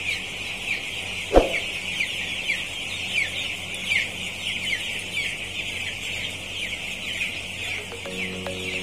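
A large flock of ten-day-old broiler chicks peeping continuously, a dense chorus of short falling cheeps, over a steady low hum. A single sharp thump about a second and a half in, and music comes in near the end.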